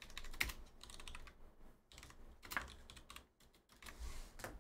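Typing on a computer keyboard: a quick, irregular run of key clicks.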